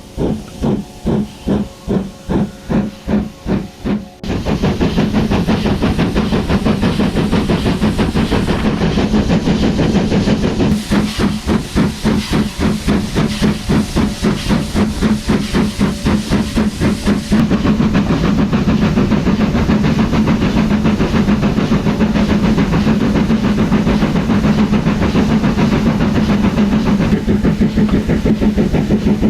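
Ivatt Class 2 steam locomotive 46447 working. A quick run of exhaust chuffs, about three to four a second, for the first four seconds, then abruptly a louder steady rush of steam hiss with fast beats running through it.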